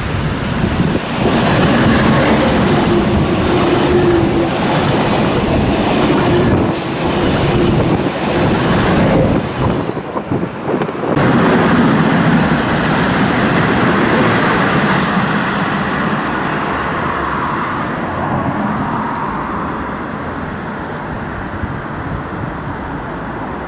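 Long-distance passenger train passing at speed, a loud rushing of wheels on rail. It dips briefly about ten seconds in, then swells again and fades slowly away.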